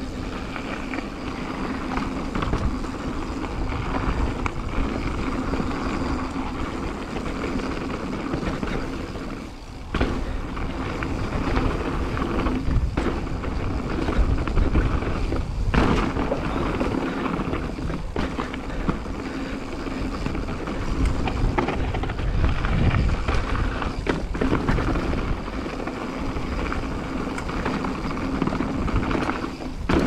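Mountain bike on Maxxis Minion tyres rolling fast down a dirt forest trail: steady tyre rumble and rattle with wind on the helmet camera, and sharp knocks from bumps about 10 and 16 seconds in.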